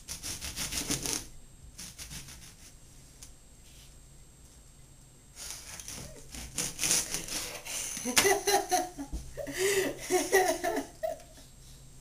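A kitchen knife sawing through an orange on a cutting board in repeated short strokes, then a woman laughing for about three seconds near the end.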